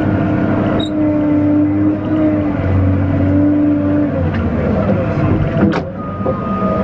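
Cat 950M wheel loader's diesel engine and hydraulics running under load, heard from inside the cab, with a steady whine that stops about four seconds in and a sharp click near the end.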